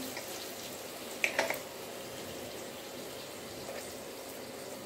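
Watery mustard-and-poppy-seed gravy simmering in a wok, a steady hiss, with a short clatter just over a second in.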